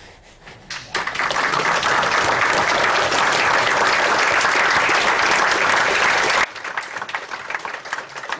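Audience applauding: the clapping swells in within the first second and stays loud, then drops suddenly to lighter clapping about six and a half seconds in.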